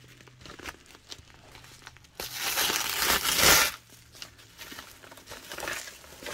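Packaging crinkling and rustling as an item is unwrapped, with one loud burst of crinkling about two seconds in that lasts over a second, then softer rustles.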